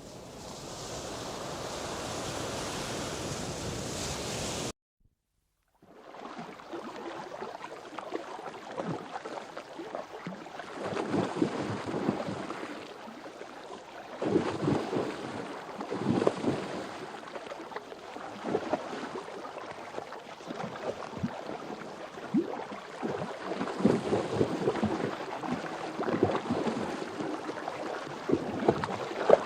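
Water: a steady rush of surf for the first few seconds, then, after a brief silent cut, water lapping and washing in irregular swells.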